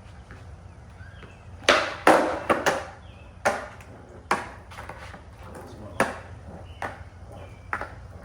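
Skateboard clacking against pavement: a quick cluster of sharp wooden clacks about two seconds in, the sound of a trick being popped and the board landing, then single knocks every second or so.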